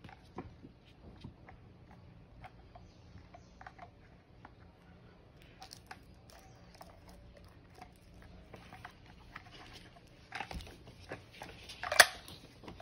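Soft scattered clicks and taps of pens and markers being set into a clear plastic desk organizer, with one sharper click near the end.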